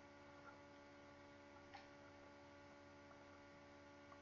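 Near silence: a faint, steady electrical hum, with a couple of faint clicks, the clearest a little under two seconds in.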